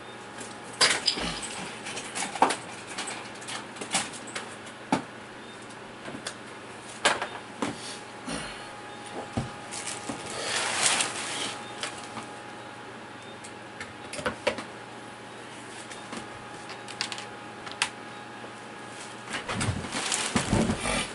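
Intermittent clicks, taps and light knocks of plastic laptop parts being handled and fitted together, with a longer rustle about ten seconds in and a busier run of handling noise near the end.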